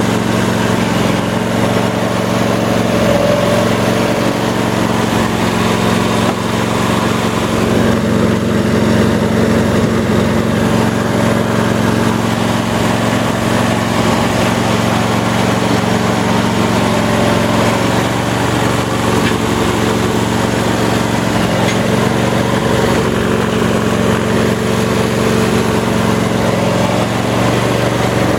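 Briggs & Stratton Intek 26 horsepower V-twin engine of a Troy-Bilt GTX2654 riding mower, running steadily at an even speed.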